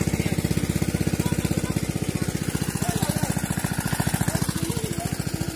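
Small engine running at a steady speed, with a fast, even beat.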